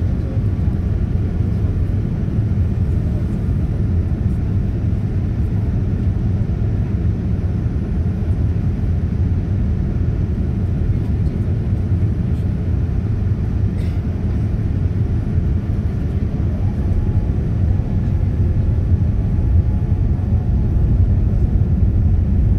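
Steady low rumble inside the cabin of a Boeing 787-9 descending to land: engine and airflow noise, growing a little louder near the end.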